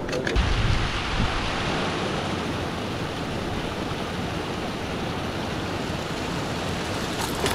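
Steady rush of water pouring over a rocky ledge into a churning, foaming pool, like a small waterfall or rapids on a dropping tide.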